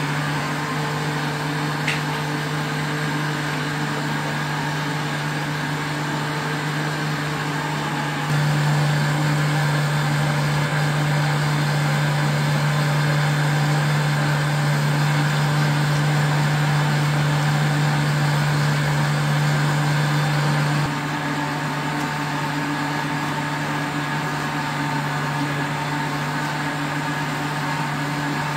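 A steady low mechanical hum over a constant hiss. It steps up louder about eight seconds in and drops back about twenty-one seconds in.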